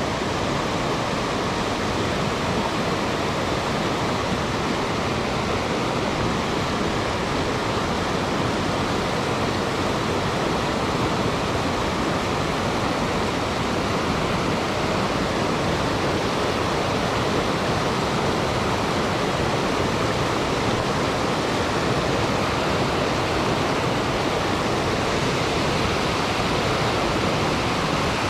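Rushing river water, a steady, even rush of current.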